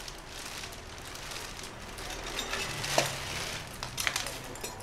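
Clear plastic bag crinkling and rustling as a floor air pump is pulled out of it, with a sharp crackle about three seconds in and a few more just after four seconds.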